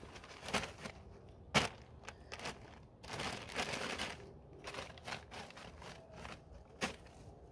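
A bag of discarded clothing being rummaged through by hand: irregular rustling and crinkling with scattered clicks. The sharpest click comes about one and a half seconds in and another near the end.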